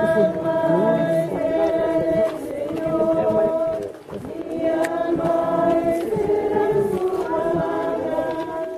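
Many voices singing a Spanish Catholic hymn together, holding long drawn-out notes, with a brief pause for breath about four seconds in.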